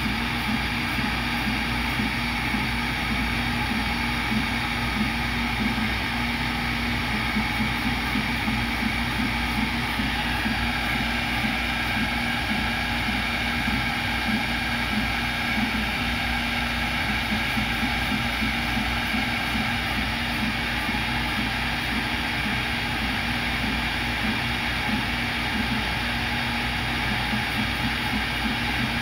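CNC router spindle running while drilling holes in a copper-clad circuit board: a steady machine noise with a faint high whine, and a low buzz that switches on and off irregularly throughout.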